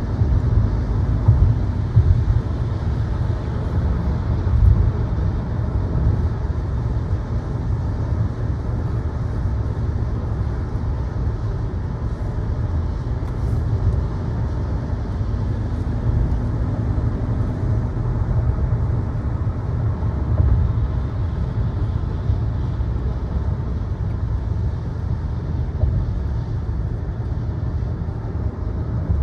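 A car driving along steadily, with a constant low rumble of road and engine noise.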